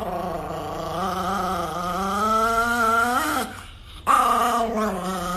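Chihuahua growling in long, drawn-out, pitched growls. The first lasts about three and a half seconds and rises a little in pitch at the end; a second starts about four seconds in.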